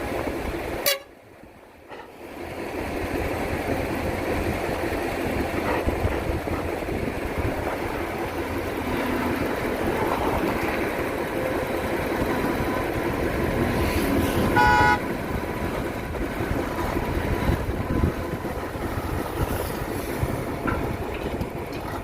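Excavator's diesel engine running under load with a steady low rumble, briefly dropping out about a second in. About two-thirds of the way through, a vehicle horn gives one short toot.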